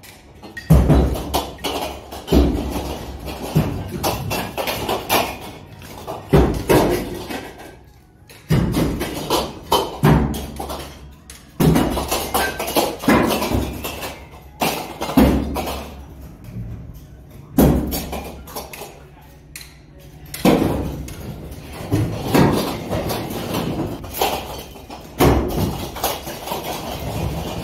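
Heavy thuds and knocks at irregular intervals of a second or two: scrap sealed compressors being unloaded from a shipping container and landing on a pile of others.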